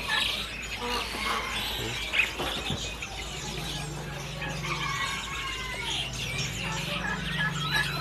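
Many caged songbirds chirping and calling at once: a dense mix of short chirps, whistles and squeaky calls. A low steady hum joins underneath about three seconds in.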